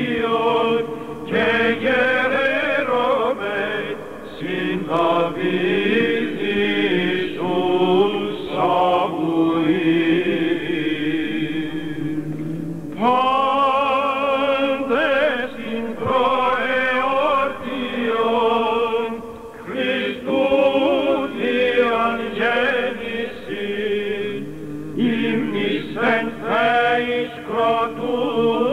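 Greek Orthodox Byzantine chant: a male chanter sings a slow, ornamented melody in long phrases over a steady held drone note (the ison).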